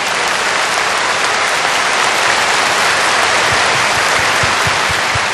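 A large audience applauding, many hands clapping in a dense, steady wash of sound.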